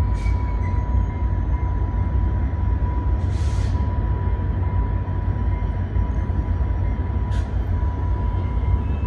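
Trinity Railway Express diesel locomotive running with a heavy low rumble and a steady high-pitched tone, with three short hisses a few seconds apart.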